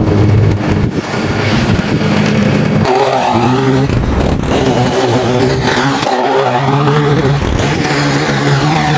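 Lawn mower engine running steadily, its pitch shifting a couple of times.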